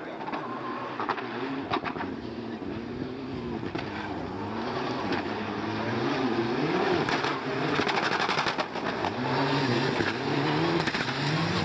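Mitsubishi Lancer Evolution rally car's turbocharged four-cylinder engine revving hard on a gravel stage. Its pitch climbs and drops again and again through gear changes and lifts, and it grows louder as the car approaches, with scattered sharp cracks.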